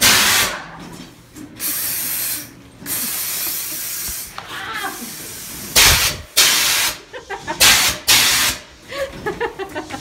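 Repeated loud hissing blasts of compressed air, a haunted-attraction scare effect: two longer blasts of about a second each early on, then several short sharp ones in the second half.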